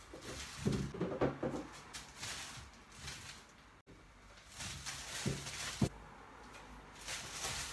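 Plastic grocery bags rustling and fruit and vegetables being handled and set into plastic baskets, with a few soft knocks: about a second in and twice near the end.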